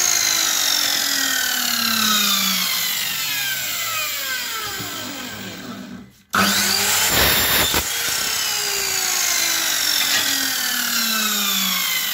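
Electric mitre saw cutting aluminium fly-screen frame profile. After each cut the blade winds down with a slowly falling whine, and a second run starts abruptly about halfway through.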